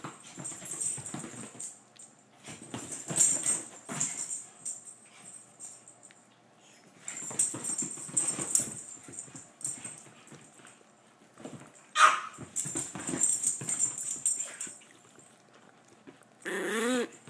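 Two small dogs play-wrestling on leather furniture: scuffling paws and jingling collar tags, with a sharp yelp about twelve seconds in and a wavering whine near the end.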